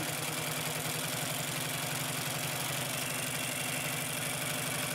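Consew P2339RB double-needle walking-foot industrial sewing machine running steadily, stitching through a single layer of vinyl with a fast, even rhythm of needle strokes.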